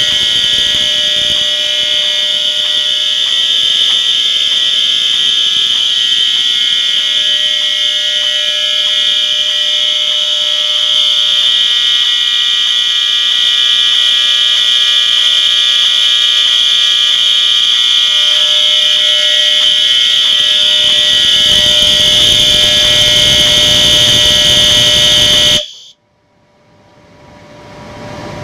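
Fire alarm horn sounding a loud, continuous steady tone that cuts off suddenly near the end, followed by a faint sound swelling up.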